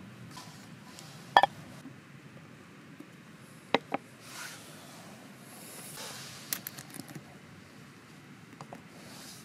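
An aluminium beer can and a metal camp mug being set down on and handled over a thick wooden board: a few sharp knocks and clinks, the loudest about a second and a half in, a pair just before four seconds and a small cluster around seven seconds, with soft rustling between.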